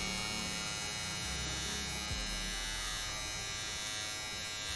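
Havells BT5112C cordless beard trimmer running with a steady electric buzz as it is run over the hair on a forearm.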